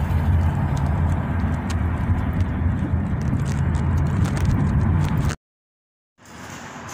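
Road and engine noise inside a moving car, a steady low rumble with scattered light clicks. It cuts off suddenly about five seconds in, and after a short gap a much quieter outdoor background follows.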